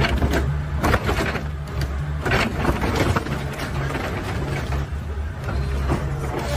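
Tracked hydraulic excavator's diesel engine running steadily while its bucket crushes car bodies, with several sharp crunches and cracks of sheet metal and glass giving way.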